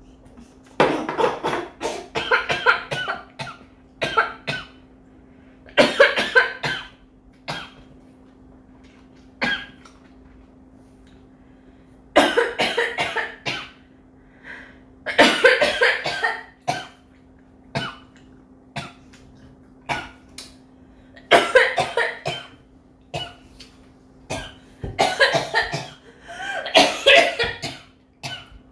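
A young woman coughing in repeated fits: bouts of several harsh coughs every few seconds, with a faint steady hum underneath.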